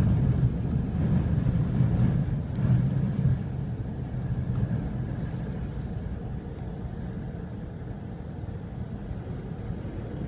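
Jet noise of a NASA ER-2's single F118 turbofan at takeoff power, fading steadily as the aircraft pulls away down the runway and climbs out, leaving a low rumble.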